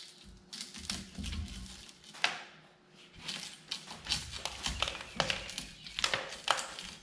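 Broken window glass being scraped and chipped out of a backhoe cab window frame's channel into a plastic bucket: an irregular run of sharp glassy clicks and scrapes, with a few dull knocks of the steel frame.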